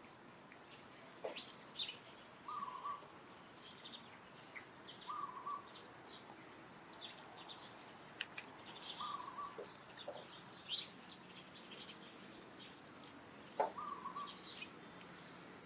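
Faint bird chirps: scattered short, high chirps, and a short mid-pitched call repeated four times, a few seconds apart.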